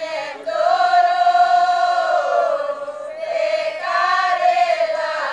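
A large choir of mostly women singing a slow Romanian religious folk song to the Virgin Mary together in one melody line, unaccompanied. Long held notes, with short breaks between phrases about half a second in and again around three seconds in.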